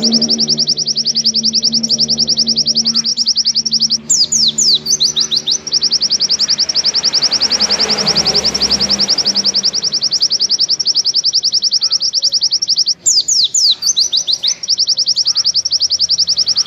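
White-eye (pleci) singing its long 'nembak' song: a rapid, even run of high trilled notes that goes on almost without a break. Twice, about four seconds in and again nine seconds later, it breaks into a few quick downward-sweeping notes.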